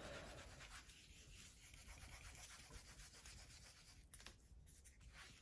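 Faint, steady rubbing of a felt dry-erase eraser wiped back and forth across a whiteboard.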